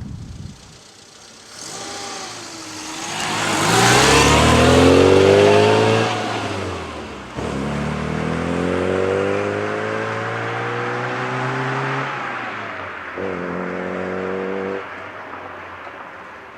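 Rover Mini's A-series four-cylinder engine breathing through a Fujitsubo side-exit 'Cooper S sound' muffler, with a dry, crisp exhaust note. It accelerates with the note climbing, shifts up sharply about seven seconds in, and climbs again in the next gear. It holds a steady note briefly near the end, then fades.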